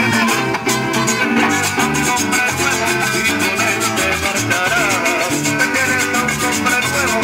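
A live band playing Latin dance music: an electric bass line and drum and timbales strokes keep a steady beat under a metal shaker and a strummed small acoustic guitar.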